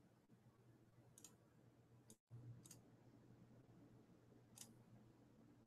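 Near silence: room tone with a low steady hum and a handful of faint, sharp clicks from working a computer.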